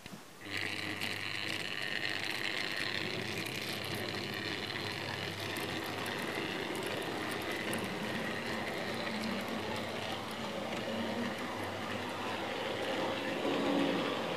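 Tri-ang Dock Shunter model locomotive's electric motor starting about half a second in and then running steadily, a hum with a higher whine, with the wheels running on the track as it pulls its wagons.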